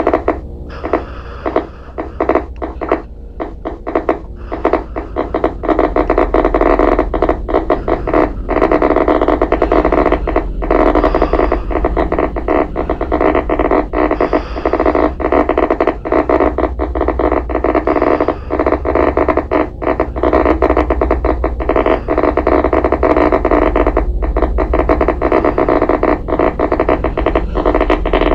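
Experimental electronic noise soundtrack: a loud, dense buzzing drone over a low hum, shot through with constant crackles and clicks. It swells and grows fuller about five seconds in.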